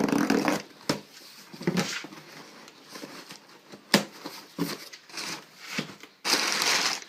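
A parcel being unpacked by hand: scattered knocks and clicks as things in the box are handled, then a loud burst of rustling, tearing packaging near the end.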